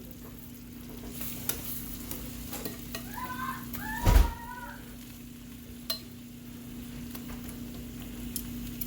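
Chicken pieces sizzling as they fry, with scattered clicks of utensils and a loud thump about four seconds in, over a steady low hum.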